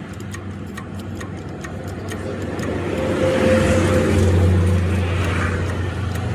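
A truck engine running steadily with a quick regular ticking, then building up louder about halfway through as it is revved or put under load.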